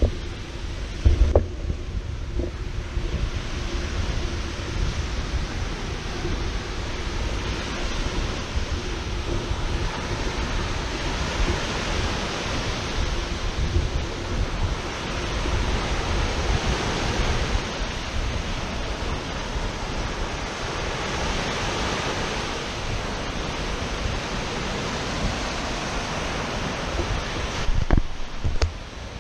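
Lake Michigan waves breaking and washing up on a sandy shore, the surf swelling and easing every few seconds, with wind rumbling on the microphone. A couple of short knocks about a second in and near the end.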